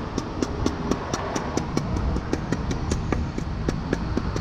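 Small hatchet chipping into a wooden log being hand-carved, light quick knocks at about four or five a second, over a steady low traffic rumble.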